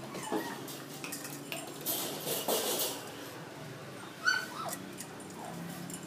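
Poodle giving a short high whimpering yelp about four seconds in, followed by fainter whines, with a burst of rattling or clattering noise a couple of seconds earlier.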